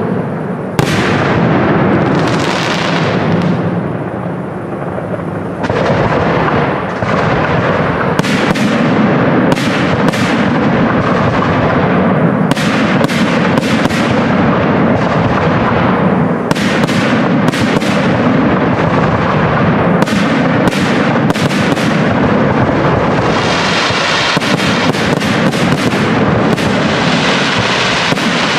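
Aerial firework shells bursting in quick succession, a dense run of bangs over a continuous rumble that thickens after about six seconds. Near the end a stretch of crackling joins the bangs.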